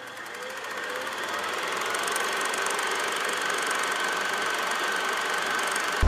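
Yamaha R6 sport bike's inline-four engine running, rising in pitch and growing louder over the first couple of seconds, then holding a steady high note. It sounds thin, with almost no low end.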